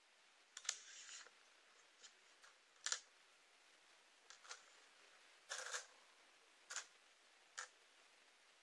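Faint short clicks and brief scrapes of fingers handling a small coin on a wooden tabletop, about six in all and spaced a second or so apart.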